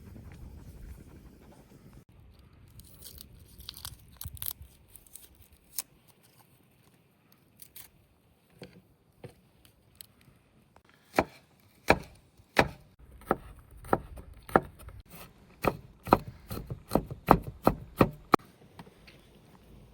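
Knife chopping on a wooden cutting board: a few faint taps at first, then a quick run of sharp, loud strikes about halfway through that stops shortly before the end.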